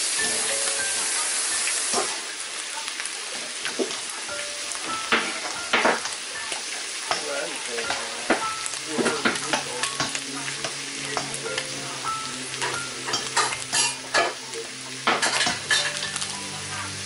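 Ground beef and vegetables sizzling in a frying pan while a spatula stirs them, scraping and clicking against the pan from about five seconds in. The sizzle is loudest in the first two seconds.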